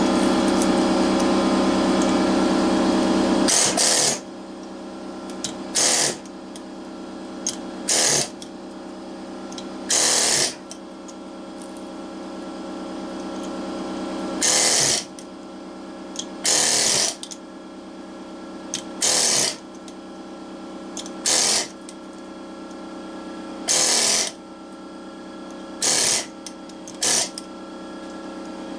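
Pneumatic air chisel hammering through the copper windings of an electric motor stator, cutting the copper free. It runs continuously for about the first three and a half seconds, then in about ten short bursts roughly two seconds apart, with a steady hum between them.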